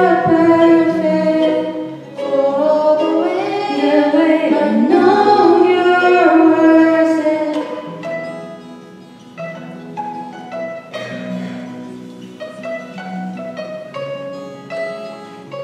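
Two female voices singing a pop song to acoustic guitar accompaniment. About eight seconds in the singing stops and the acoustic guitar carries on alone with plucked notes.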